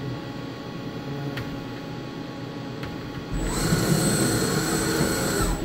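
Hurco VM-1 CNC vertical machining center running with a steady hum, then about three seconds in the table traverses along an axis, bringing a louder servo whine with a steady high-pitched tone that cuts off suddenly near the end.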